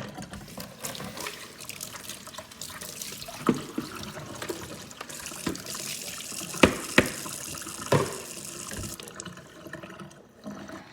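Water running from a tap and splashing, with a few sharp knocks, the two loudest close together a little past the middle. The water stops near the end.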